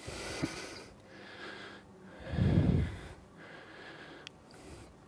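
A man breathing close to a podium microphone: several soft breaths, with one louder puff of breath hitting the microphone about two and a half seconds in.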